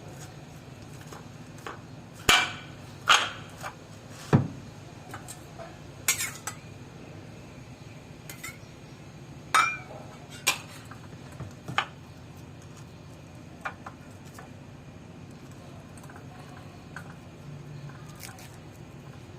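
Kitchen utensil clinking and knocking against dishes while slime ingredients are mixed, about a dozen separate irregular strikes, the loudest in the first half.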